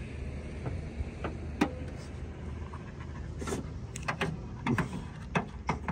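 A few sharp clicks and knocks of a car hood being unlatched, raised and propped open on its rod, over a low steady rumble.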